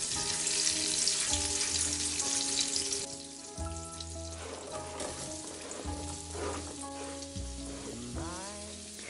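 Melted butter sizzling in a frying pan as it is stirred with a silicone spatula, the sizzle loudest for the first three seconds and then softer. Soft background music plays underneath.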